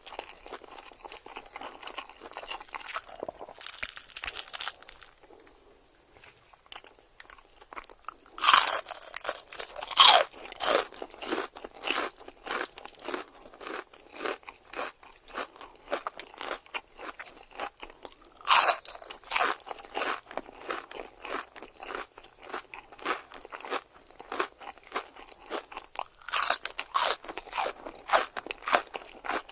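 Close-miked eating: crunchy food bitten and chewed, a steady run of crunching and crackling with several loud bites standing out, after a brief lull early on.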